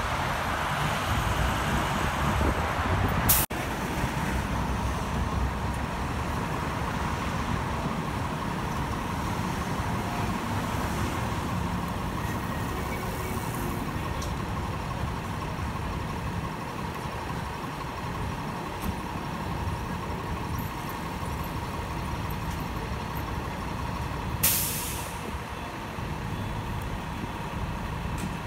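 Fire engine's diesel engine running steadily at low speed, with a short sharp hiss of its air brakes near the end. The first few seconds are steady expressway traffic rushing past.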